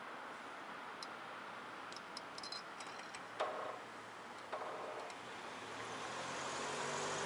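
Riding noise from a bicycle-mounted camera: light clicks and rattles and two short sharp knocks, then a motor vehicle growing louder near the end.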